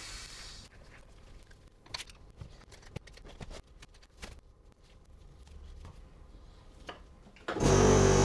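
Compressed air hissing from an air line tails off within the first second, followed by light clicks and knocks of brake caliper parts being handled on the bench. Near the end a workshop air compressor suddenly starts up and runs loud and steady.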